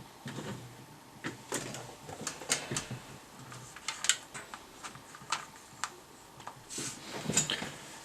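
Irregular clicks, taps and light knocks of small hard objects being handled, about a dozen spread unevenly, with a denser cluster near the end.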